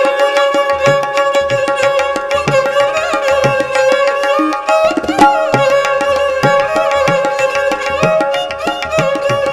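Instrumental interlude of Sikh kirtan music: a bowed fretted string instrument plays a sustained melody with a sliding rise about halfway through, while tabla keeps a steady rhythm.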